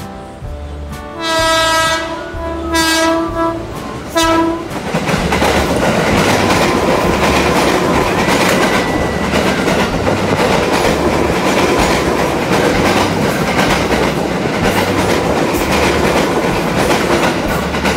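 A KRL Commuter Line electric train sounds its horn three times, one long blast and two shorter ones: the 'S35' (semboyan 35) horn signal. It then passes close by at speed, with loud continuous rushing and clattering from its wheels on the rails.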